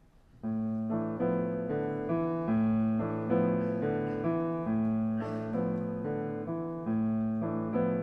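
Solo grand piano starts about half a second in, playing a steady pattern of repeated chords over a low bass note that changes every two seconds or so.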